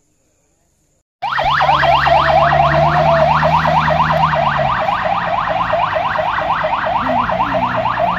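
Ambulance siren in a fast yelp: rising sweeps at about six a second, starting suddenly about a second in. A low steady hum lies beneath it for a few seconds.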